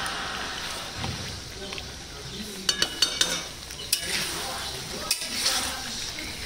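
Marinated chicken sizzling in ghee and yogurt masala in a metal kadhai as it is sautéed, stirred with a metal spatula that scrapes the pan. A few sharp clinks of the spatula against the pan come about three seconds in and again near four and five seconds.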